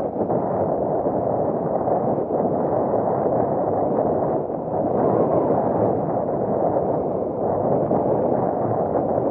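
Steady rush and splash of water along the hull of a Tiwal 3 inflatable sailing dinghy making about seven knots, mixed with wind noise.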